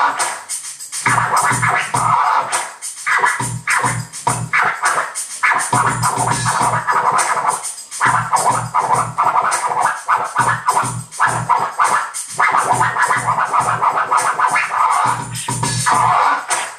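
Vinyl record scratched back and forth by hand on a turntable, choppy strokes cutting in and out over a backing beat with a steady kick drum.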